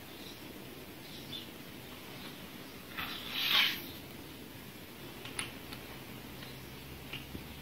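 Faint handling sounds of the cup grinding wheel and spindle head of a homemade cutter grinder being turned by hand: a short rustling scrape about three seconds in, then a few small clicks.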